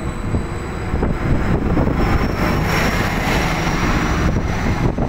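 Greater Anglia Class 755 train pulling out along the platform, with a faint whine that rises slowly as it picks up speed. Wind buffets the microphone.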